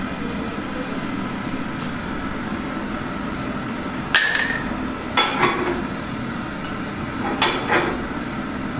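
Sharp metal-on-metal clinks and clanks from a steel bar worked against a truck tyre spreader stand: one ringing strike about halfway through, then two quick pairs. A steady low rumbling hum runs underneath.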